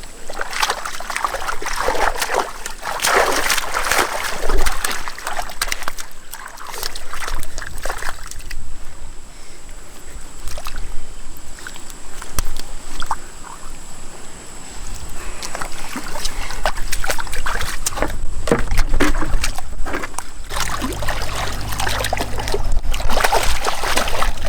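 Water splashing and sloshing in irregular surges. A low rumble joins near the end.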